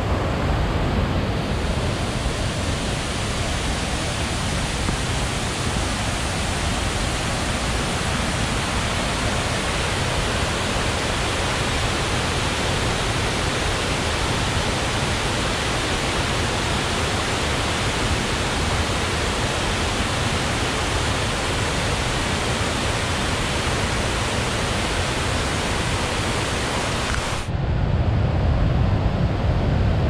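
Steady rush of a rocky forest river pouring over rapids, an even hiss with no let-up. Near the end it cuts off suddenly to a louder, lower rumble.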